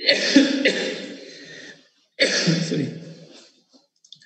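A person coughing and clearing the throat in two bouts, the second starting about two seconds in, each loud at first and then fading.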